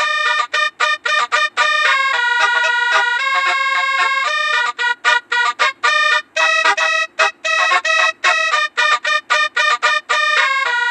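Telolet basuri bus horn playing a melody in reedy, horn-like notes. There are short chopped notes about half a second in, then held notes changing pitch step by step, then a long run of rapid stuttering staccato notes from about four and a half to ten seconds in, before held notes return.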